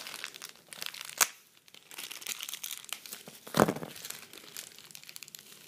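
Thin plastic packaging crinkling as a Beyblade is unwrapped: a run of small crackles, with two louder sharp crackles about a second in and a little past halfway.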